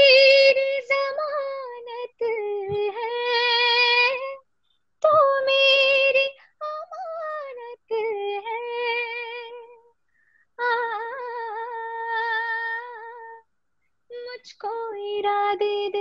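A woman singing solo and unaccompanied, in long held notes with vibrato and quick ornamented runs, in about five phrases broken by short pauses.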